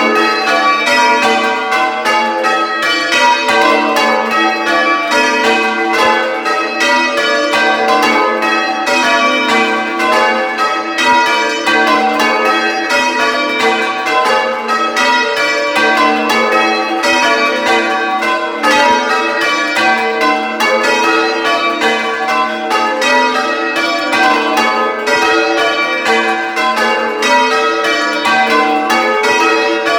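A ring of six church bells being rung in call-changes, heard close up in the belfry: a steady, unbroken stream of strikes, each bell ringing in turn, over a tenor of about 12 cwt in G.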